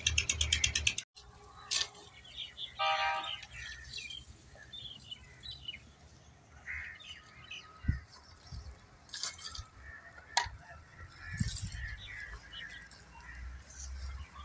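A loud, fast pulsing noise that cuts off abruptly about a second in, then quieter outdoor ambience with small birds chirping now and then, a brief pitched call about three seconds in, and a few sharp clicks and low thumps.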